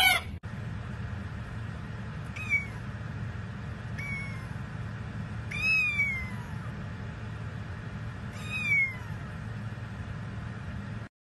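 Very young kitten mewing: four short, high-pitched mews, each falling in pitch, a second or more apart, with the third the loudest. A steady low hum lies underneath.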